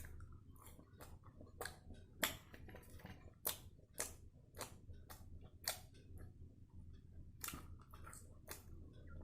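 Close-miked mukbang eating sounds: irregular sharp wet clicks and smacks of someone eating sambar vada, a couple a second.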